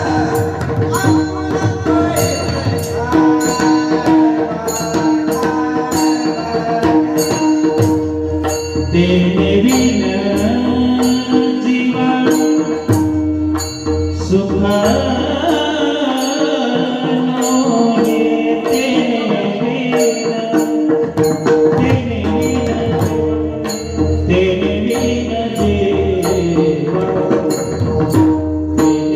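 Warkari kirtan tune sung by male voices over a held drone note, with pakhavaj drum and a steady high clink on every beat.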